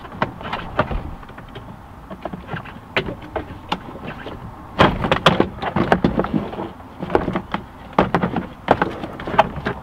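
The plastic interior trim panel of a Honda Odyssey's sliding door being worked loose and lifted off: irregular clicks, knocks and rattles of the panel and its fasteners against the door, with denser flurries about halfway through and near the end.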